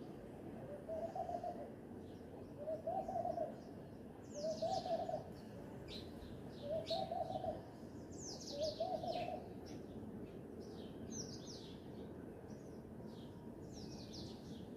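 Birdsong: one bird gives five low hooting calls about two seconds apart, each under a second long, while other birds make quick high chirps that fall in pitch. A steady low background hiss of outdoor ambience lies under it.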